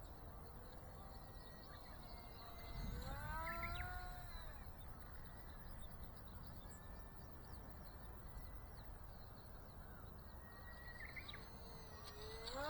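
Small brushless electric motor and propeller of a light RC plane whining faintly. Its pitch rises and falls twice, once about three seconds in and again at the end, as the throttle is opened and closed.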